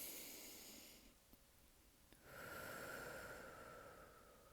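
Quiet breathing close to the microphone: one breath at the start lasting about a second, then after a short pause a longer breath that slowly fades away.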